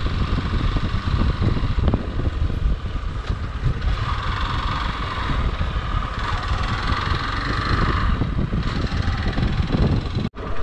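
Hero XPulse 200 fuel-injected single-cylinder engine running as the motorcycle rides along a rough dirt forest trail, heard from the rider's seat, with a dense, uneven rumble. The sound cuts out abruptly for an instant near the end.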